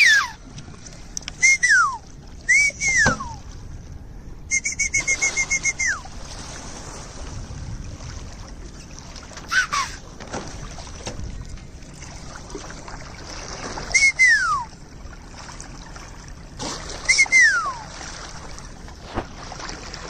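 Repeated loud whistles, each a short held note that slides steeply down, with one rapid warbling run about five seconds in. Under them runs the steady noise of a boat moving on the water.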